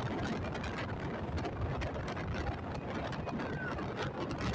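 Motorcycle riding along at speed: its engine running steadily under wind buffeting on the microphone.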